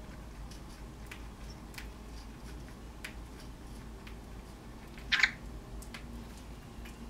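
Faint scattered ticks and rustles of fingers scratching a cockatiel's head feathers, with one short, louder sound about five seconds in.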